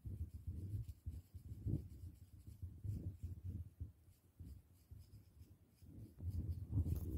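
Fine-toothed metal comb scratching and raking through a child's dry, flaky scalp in short, irregular strokes, louder near the end.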